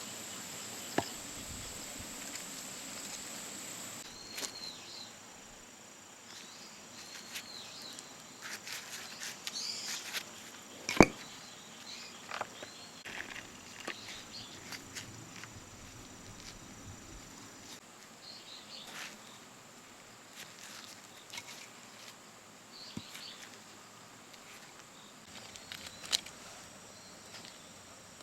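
Small fatwood campfire crackling, with scattered ticks and sharp pops, the loudest pop about eleven seconds in. Short high chirps come and go, over a steady high insect buzz that fades out after about eighteen seconds.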